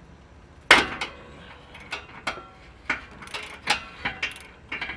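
Metal tools knocking and clinking against the steel exhaust H-pipe under a car while it is being worked loose: one sharp knock about a second in, then a run of lighter metallic taps and clicks about twice a second, some ringing briefly.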